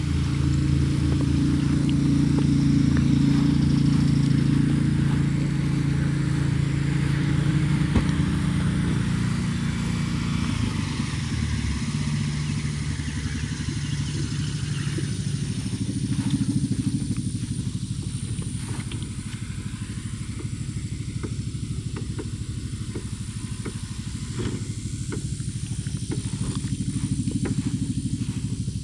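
A vehicle engine running steadily, its note settling lower and quieter about twelve seconds in, with a few light clicks and clatter later on.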